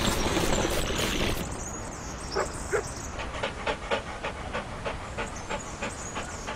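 Dog panting, an even rhythm of about four breaths a second, used as the sound of the cartoon dog. It starts with a rushing noise for about the first second and a half, and has a couple of short louder sounds about two and a half seconds in.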